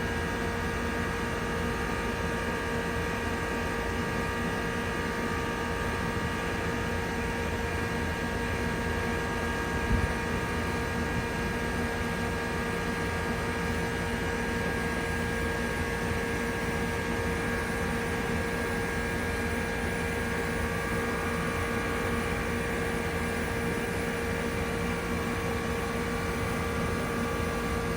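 1999 Trane XE1000 heat pump running steadily in cooling mode: a constant hum over the even rush of its fan, with one short knock about ten seconds in.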